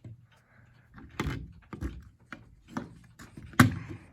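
Several sharp plastic clicks and knocks from a smoke detector being handled as its battery compartment is pushed shut, the loudest knock about three and a half seconds in.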